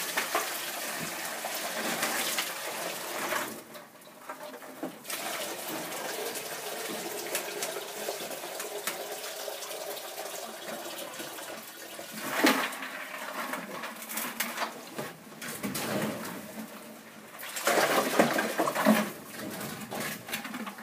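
Water with chunks of ice poured from a plastic bucket into a chicken water bowl: a steady splashing pour that stops for about a second near four seconds in, then carries on, with louder stretches about twelve seconds in and near the end.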